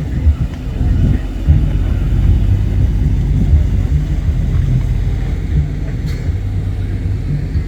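Steady low rumble of a car, mixed with wind buffeting the microphone.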